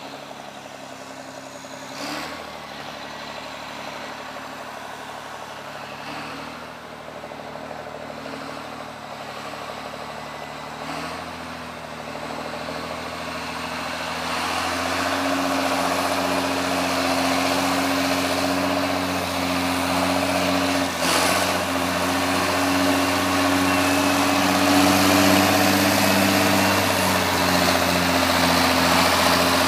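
John Deere 644A wheel loader's diesel engine running steadily, getting clearly louder about halfway through as the loader comes closer. A couple of sharp knocks are heard, one a couple of seconds in and one about two-thirds through.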